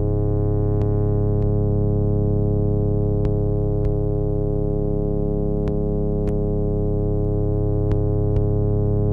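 Ambient electronic music from a eurorack modular synthesizer and Elektron gear, heard from a cassette recording: a steady low synth drone that swells slowly every few seconds, with sparse short clicks scattered over it.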